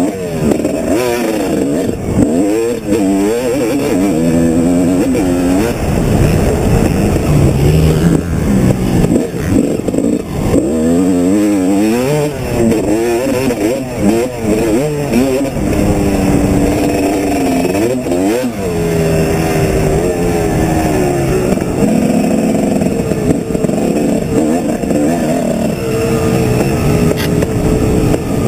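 Motocross bike engine heard up close from the bike, revving hard and falling away again and again as the rider accelerates down straights and shuts off into corners.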